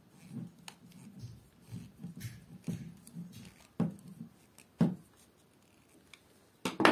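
Hand screwdriver tightening screws into a drill's plastic housing, then the drill being handled: soft scraping and rubbing, two sharp clicks about four and five seconds in, and a louder knock just before the end.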